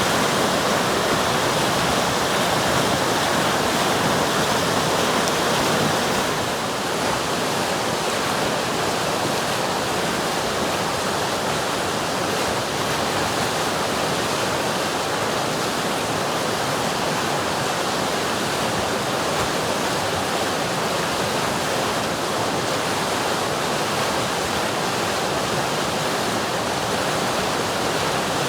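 River water flowing in a steady, full rush, a little softer from about six seconds in.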